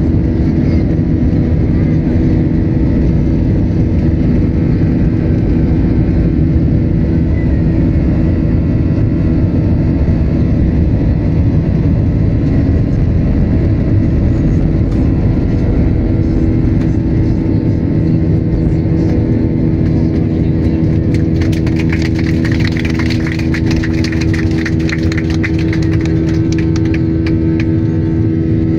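Boeing 737's CFM56 turbofan engines at takeoff thrust, heard from inside the cabin over the wing: loud and steady, with a low rumble and a steady droning tone, through the takeoff roll and lift-off. A spell of fast rattling joins in for several seconds near the end.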